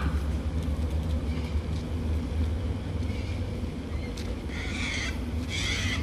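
Two harsh screeching calls from white cockatoos near the end, over a steady low rumble.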